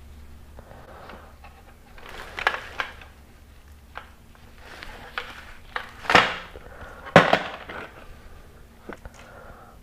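Strong adhesive tape being pulled and peeled from its white paper backing as it is wrapped around a rubber tube plug, giving crackling, rustling noises in bursts. The loudest peels come about six and seven seconds in.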